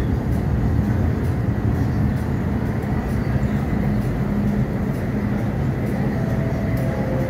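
MTR M-Train (Metro-Cammell electric multiple unit) pulling into the platform, a steady rumble and running noise as it slows. A few short steady tones sound near the end as it comes to a stop.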